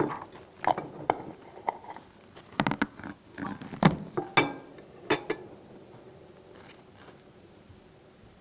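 A run of sharp knocks and clicks, about a dozen in five seconds, then quiet: tableware and things being handled at a table, with a knife set on a plate.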